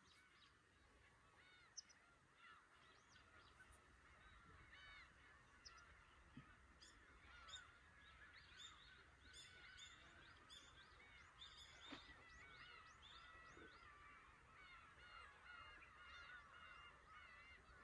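A flock of black-tailed gulls calling, many short overlapping calls at once, faint and growing denser about seven seconds in.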